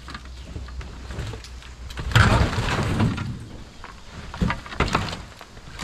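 Wooden knocks and creaking from the boards of a demolished old wooden shed, with a louder noisy clatter about two seconds in and a few sharp knocks near the end.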